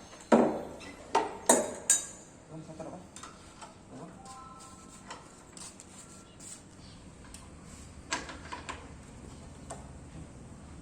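Several sharp metallic clanks and knocks, four loud ones close together in the first two seconds, then scattered fainter knocks.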